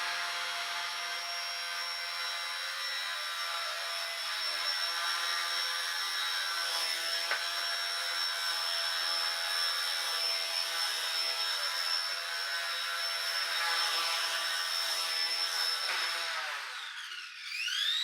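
XK K110 Blast micro RC helicopter flying: a steady high-pitched electric motor whine with rotor buzz. Near the end the pitch and level drop sharply and then climb back up as the rotor slows and spools up again.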